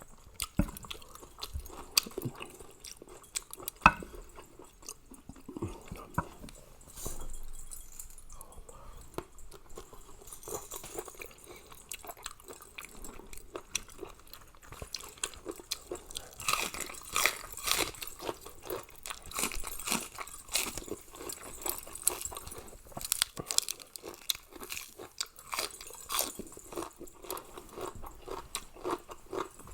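A person eating a Thai pounded mixed-seafood salad: chewing and crunching with many small, irregular mouth clicks, busier in the second half.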